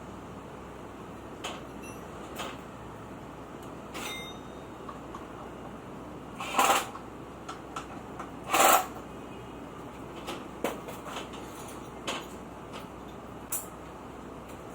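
Scattered knocks and clicks of tools and motorcycle parts being handled during fork work, with two louder clattering bursts about six and a half and eight and a half seconds in.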